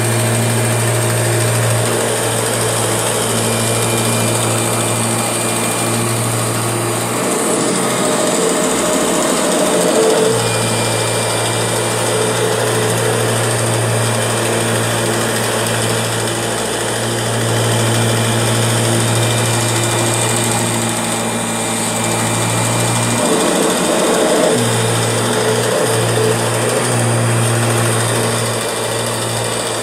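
Kirby G6 vacuum cleaner running with a steady motor hum and a faint high whine that comes and goes. Twice, about 7 and 23 seconds in, the hum gives way for a few seconds to a rougher, noisier sound: the strange noise the owner is showing.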